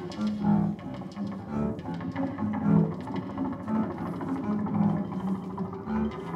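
Double bass played live: a run of short, low notes that change pitch from one to the next, with scattered sharp clicks among them.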